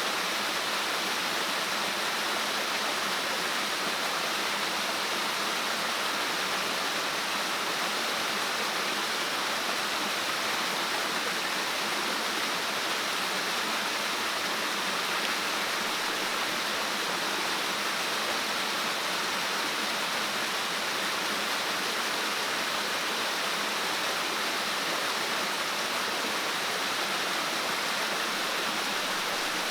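Steady rushing of water, an even unbroken hiss with no separate sounds standing out.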